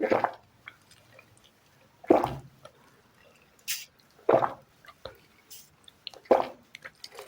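Close-miked eating sounds: a series of short, wet, squishy bites and mouth noises, one every second or so, with quiet between them.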